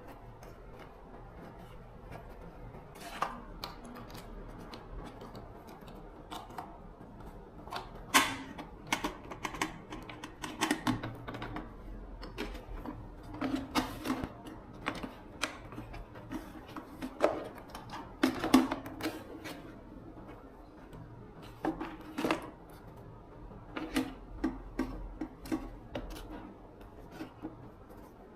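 Irregular clicks and light knocks of tools and small parts being handled, coming in quick clusters through the middle and thinning out near the end.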